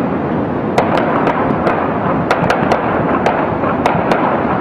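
High-rise tower fire: a loud, steady rushing roar with about a dozen sharp, irregular pops and cracks over it.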